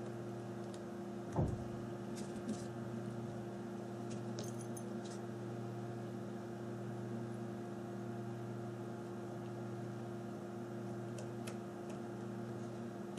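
Faint, scattered small clicks and taps from handling phone parts and a screwdriver during reassembly, with one low thump about a second and a half in, over a steady background hum.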